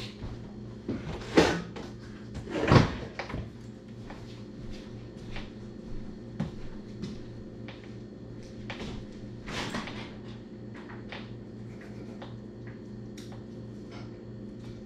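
Kitchen cupboard doors and household items being handled: two loud knocks about a second and a half and three seconds in, then lighter scattered taps and clicks. A steady low hum runs underneath.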